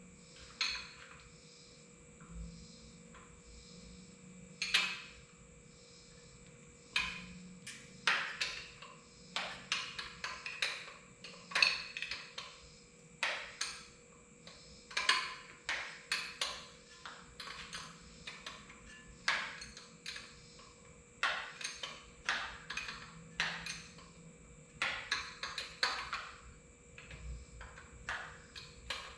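Metal hand tools clinking and knocking against engine parts during a tractor engine teardown: irregular sharp clinks, a few at first, then frequent quick runs of several from about seven seconds in.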